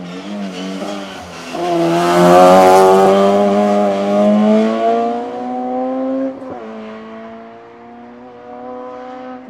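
A hillclimb race car accelerating hard past, its engine note rising steadily in pitch and loudest about two to three seconds in. About two-thirds of the way through the pitch drops suddenly as it shifts up, then climbs again as the car pulls away.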